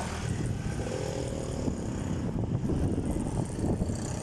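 Motorcycle riding at road speed: the engine runs steadily under heavy wind rumble on the microphone.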